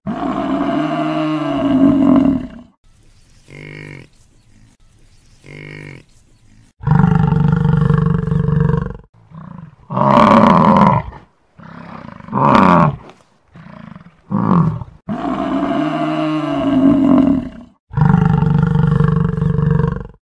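Buffalo calling over and over: six long, loud, deep calls of one to two and a half seconds each, with short, quieter calls between them.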